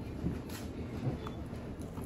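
Faint handling sounds as a stiff yellow cover sheet is lifted by hand off the cells of an electric-scooter battery pack, with no sharp snaps.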